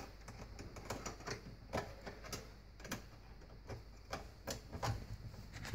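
Scattered light clicks and taps as a screw and driver bit are fitted against a dishwasher's metal mounting tab, with the drill not yet running.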